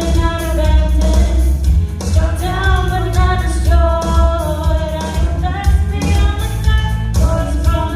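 Worship song playing with sung vocals over a band with a strong steady bass line and drums.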